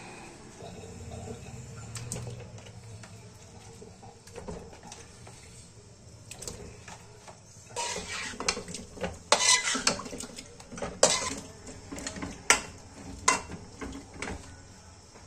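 Metal spoon scraping and clattering against a steel pan while stirring chicken pieces. A quieter start with a few knocks gives way to a run of loud, sharp scrapes and clanks in the second half.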